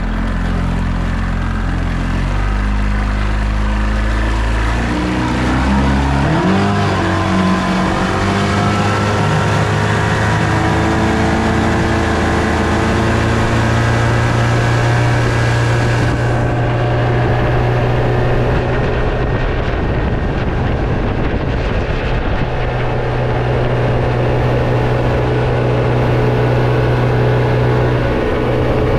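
1997 Mercury 125 hp two-stroke outboard driving a boat under way. Its revs climb over a few seconds about five seconds in as the boat accelerates, then hold steady at cruising speed over a constant rushing noise.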